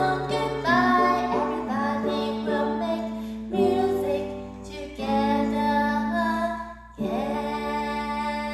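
A woman singing a slow, gentle goodbye lullaby in three-beat time, holding long notes over a strummed string instrument, with a new chord struck every second or two.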